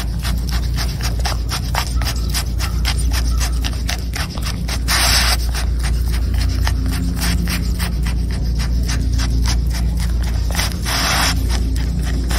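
Giant anteater lapping food off a rock with its long tongue: a fast run of small wet clicks, several a second, with two short hissing bursts about five and ten and a half seconds in, over a steady low rumble.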